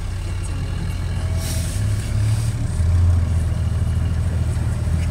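Engine of an open safari vehicle heard from its passenger seats: a low, steady running hum that rises a little about two seconds in.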